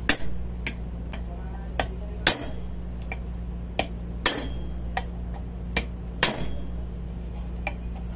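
A hammer striking a steel drift punch to drive a bearing into the Unic crane winch's gear housing. It comes as about four pairs of sharp metallic blows, each a lighter tap followed about half a second later by a heavier strike that rings briefly.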